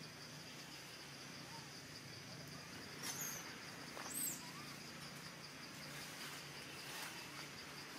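Steady, pulsing insect drone, with two short high chirps about three and four seconds in and a few faint soft calls.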